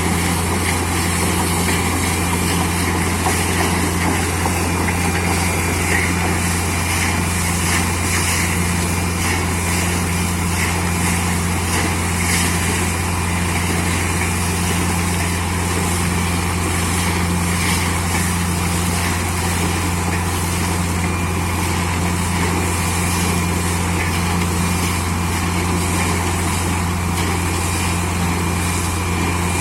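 Borewell drilling rig running: its engine and air compressor make a steady, unbroken machine drone with a strong low hum.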